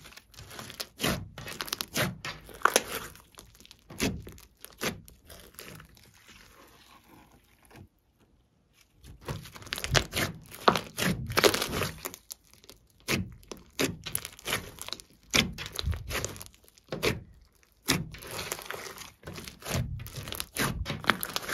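A large lump of glossy slime with foam beads mixed in, squeezed, pressed and pulled by hand, giving irregular crackling pops and squishes as air pockets in it burst. It goes briefly quiet about eight seconds in.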